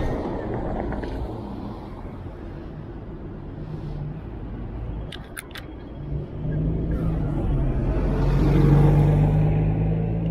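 Street traffic rumble as a vehicle passes close by, its low hum building from about six seconds in and peaking near the end. A quick run of three or four camera shutter clicks about five seconds in.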